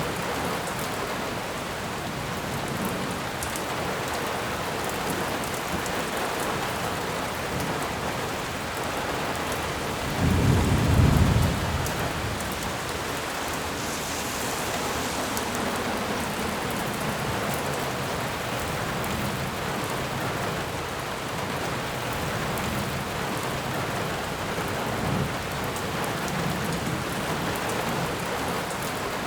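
Steady rain falling in a forest, a continuous hiss of drops. About ten seconds in comes a short, low rumble of thunder, the loudest moment, lasting under two seconds.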